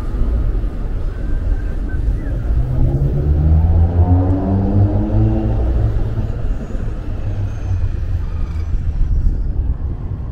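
Road traffic: a steady low rumble of passing vehicles, with one motor vehicle's engine rising in pitch as it accelerates past from about two and a half seconds in.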